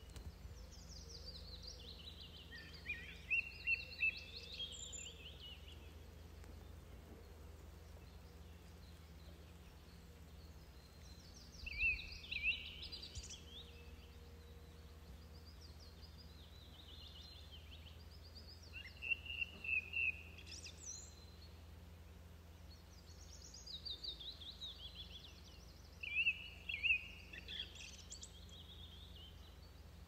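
A songbird singing: several rapid, warbling song phrases a few seconds apart, over a steady low rumble.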